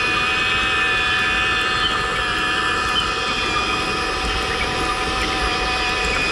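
Huina 1580 remote-control excavator's small electric motors and plastic gearboxes running with a steady whine.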